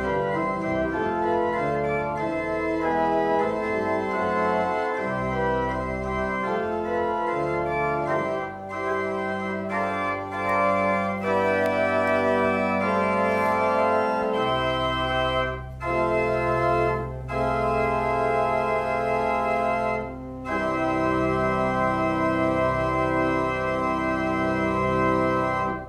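Church organ playing sustained chords over deep bass notes, in phrases with a few brief breaks, stopping abruptly at the end.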